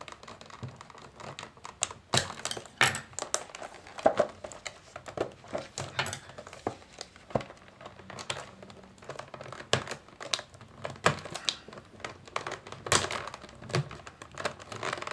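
Clear plastic blister and cardboard backing card of a toy package crinkling and crackling in the hands, with irregular sharp clicks and taps as the blister is worked loose from the card.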